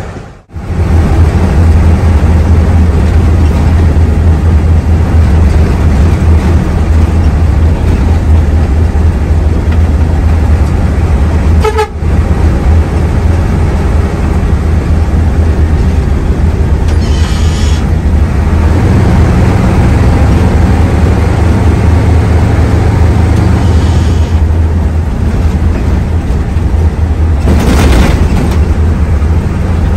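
Hino AK3HR Ranger bus diesel engine running with a steady loud low drone, and brief horn toots now and then.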